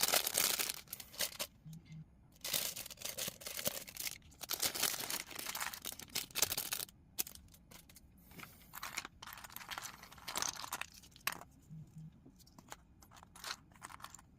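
Plastic bags of LEGO pieces crinkling and tearing open, in irregular bursts, with a few sharp clicks near the end.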